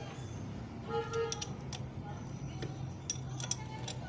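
Light metallic clinks and clicks of steel parts on a forklift steering knuckle being handled while the king pin is worked into its housing, one clink ringing briefly about a second in. A steady low hum runs underneath.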